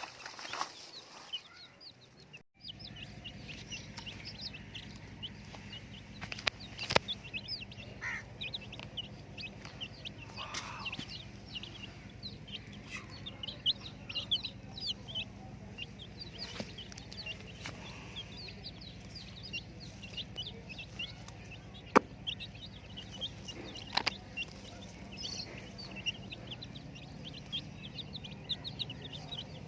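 A group of baby chicks peeping, with many short, high chirps overlapping continuously over a steady low hum, and a few sharp clicks.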